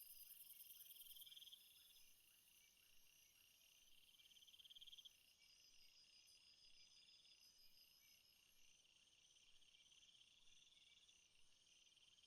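Faint night chorus of rainforest insects trilling in several overlapping layers: a pulsed trill that swells and fades every few seconds under a steady high-pitched drone, with a very high whine that drops out about a second and a half in.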